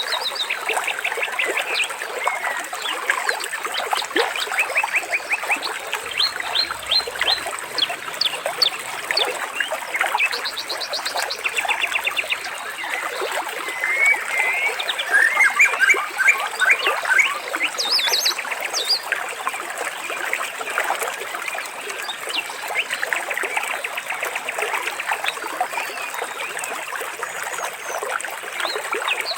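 A stream running steadily, with small birds calling over it in many short rapid trills and chirps.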